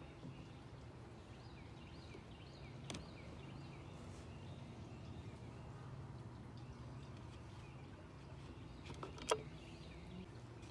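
Quiet outdoor background with a low steady hum and faint bird chirps, then a single sharp plastic click about nine seconds in as the chainsaw's fuel filler cap is taken off and set down.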